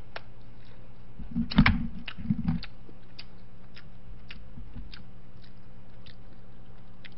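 Close-miked chewing of a mouthful of food, with small wet mouth clicks throughout and a louder cluster of low thuds about a second and a half to two and a half seconds in.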